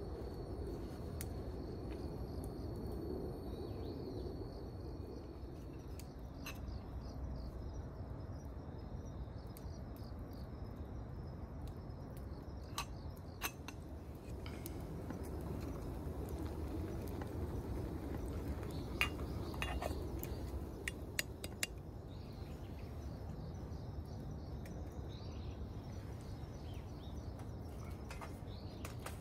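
Quiet woodland ambience with a steady low background noise and a high insect trill that fades out about six seconds in. A scattering of sharp clinks, mostly in the second half, comes from metal camp cookware and utensils being handled by the campfire.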